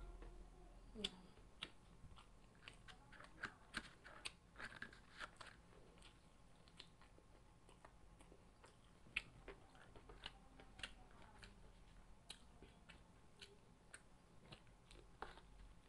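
Quiet, close-up chewing and biting of crispy fried chicken (Jollibee Chickenjoy), with scattered sharp crunches and wet mouth clicks.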